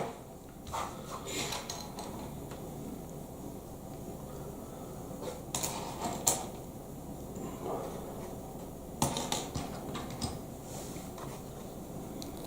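Plastic Lego Technic pieces clicking and rattling as they are handled and pressed together. The clicks come in scattered ones and twos, with a sharper pair about midway and a quick cluster near the end.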